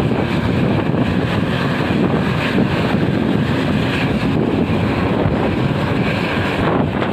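Steady wind rush on the microphone mixed with road and engine noise from a motorcycle riding in traffic.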